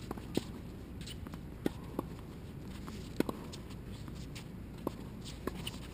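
Several short, sharp knocks of tennis balls bouncing and being struck on an outdoor hard court, irregularly spaced, over a steady low background hum.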